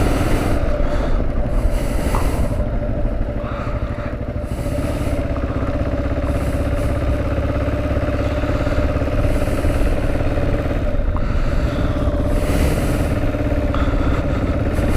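Kawasaki KLR 650 single-cylinder four-stroke engine running steadily while riding at an even speed.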